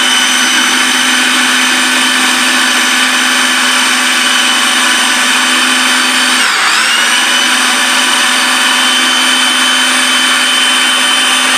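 Electric kitchen blender running steadily at high speed, grinding chickpeas, garlic and lemon water into hummus paste. Its motor pitch sags briefly a little past halfway and then climbs back up.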